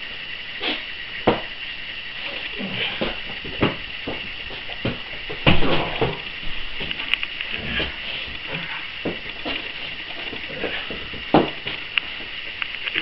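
Irregular thuds and knocks of two wrestlers grappling and hitting the ground, the heaviest cluster of impacts about five and a half seconds in, over a steady high-pitched whine.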